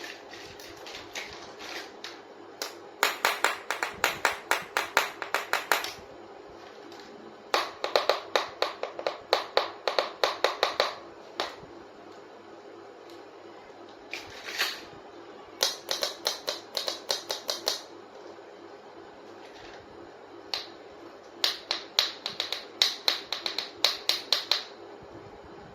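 Rapid, sharp clicking or tapping on small plastic toy kitchen pieces, about five clicks a second, in four runs of a few seconds each with short pauses between.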